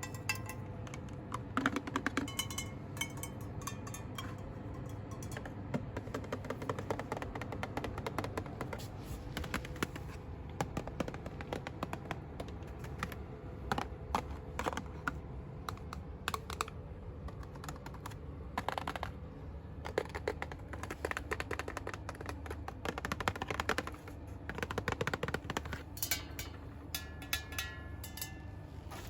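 Fast, dense tapping and scratching of fingernails on cosmetic product packaging, a steady stream of quick clicks and rustles.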